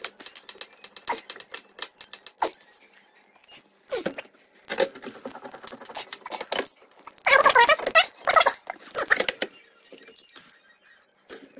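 Hands fitting parts back onto a Miele washing machine's casing: irregular clicks, taps and scrapes, with a louder, denser stretch of handling noise about seven to eight and a half seconds in.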